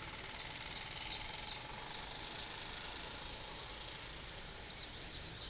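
Outdoor ambience: a steady high-pitched insect drone, with a bird's short chirps in a quick series about half a second in and again near the end.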